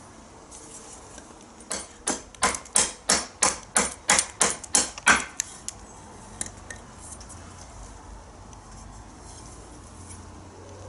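A carbon-steel knife blade chopping into a small piece of wood: about a dozen sharp knocks in quick succession, roughly three a second, then a few light taps. The chops are a test of whether the newly sharpened edge holds up on wood.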